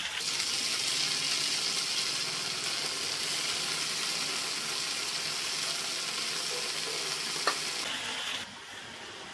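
Freshly washed coriander leaves sizzling in plenty of hot oil in a kadai: a steady frying hiss. A single short click comes about seven and a half seconds in, and near the end the sizzle drops to a quieter hiss.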